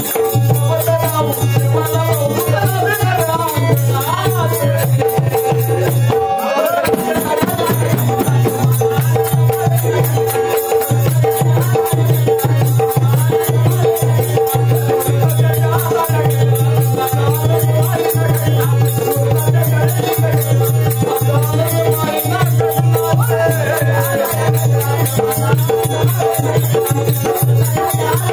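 Marathi folk music: a steady drone under fast, dense rattling percussion, with a wavering melody above. The music breaks off for a moment about six and a half seconds in.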